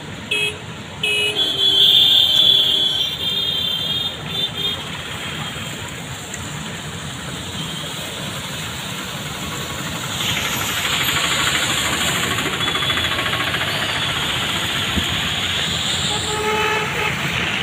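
Road traffic driving through a flooded street: motorcycle and auto-rickshaw engines with tyres hissing and splashing through standing water, the hiss growing louder about ten seconds in. Vehicle horns honk in the first few seconds and again near the end.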